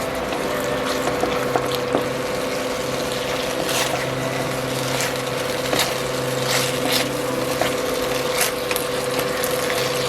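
Chicken in teriyaki sauce sizzling in a kadai as it is stirred, with the spatula scraping and clicking against the pan every second or so over a steady hum.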